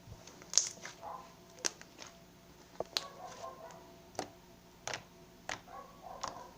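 Slime being squeezed and worked by hand, giving irregular sharp wet pops and clicks, about six of them, between softer squishing.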